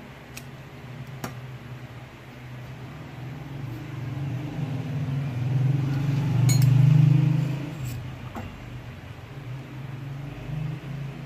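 Stainless steel trephine parts clinking a few times as they are handled and fitted together, with sharp metal ticks over a low hum that grows louder in the middle and then fades.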